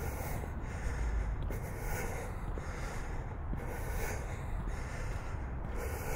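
Breathing of the person carrying the camera, close on its built-in microphone: a run of breaths in and out, about one a second, over a low rumble.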